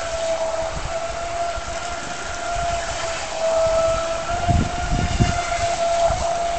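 Home-made carbon RC boat's motor running at a steady high-pitched whine that wavers slightly in pitch as the boat circles at speed and throws spray. Low rumbles come in about two-thirds of the way through.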